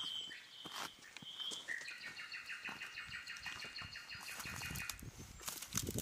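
Woodland bird song: a few short high whistled notes, then a rapid trill lasting about three seconds. Scattered crackles and a louder knock near the end.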